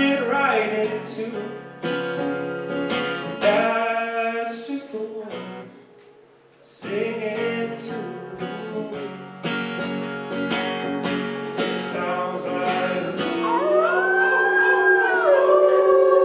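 Strummed acoustic guitar with a singing voice, breaking off briefly about six seconds in. Near the end several voices join in long, wavering glides: the audience howling along with the chorus.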